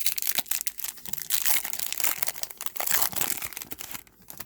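Wrapper of a Topps trading card pack crinkling and tearing as it is opened and handled, a dense crackling that stops about four seconds in.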